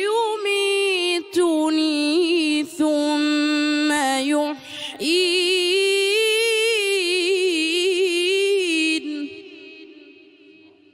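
A boy's voice chanting Quran recitation in the melodic tajwid style through a microphone, holding long ornamented notes with brief breaks for breath. The last note ends about nine seconds in and fades away in the hall's echo.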